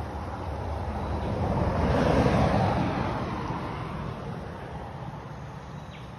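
A road vehicle passing, its tyre and engine noise swelling to a peak about two seconds in and then fading away, over a steady low rumble.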